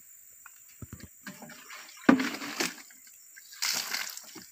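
Rinse water sloshing and splashing out of a plastic palm-sap collecting jug as it is tipped and emptied, after its slimy inside has been scrubbed out with sugar-palm fibre. There are two main splashes, about two seconds in and again near the end.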